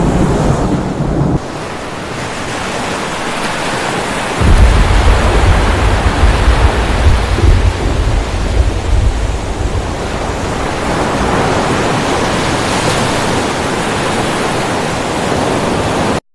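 Storm sound effect of a raging sea: a steady roar of surf and wind, with a deep rumble coming in about four seconds in and lasting several seconds. The sound cuts off suddenly near the end.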